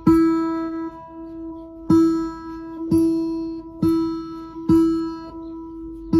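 Acoustic guitar strummed five times, roughly once a second, each chord ringing out and fading before the next.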